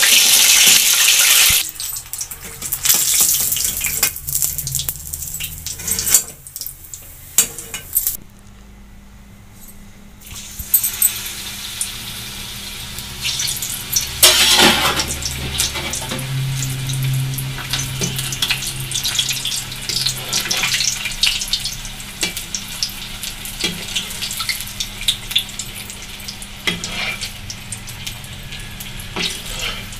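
Papad-wrapped paneer rolls sizzling as they deep-fry in hot oil, with occasional clicks of a metal slotted spoon against the kadai. The sizzle is loudest for the first second or so, then settles, dipping quieter for a couple of seconds before picking up again.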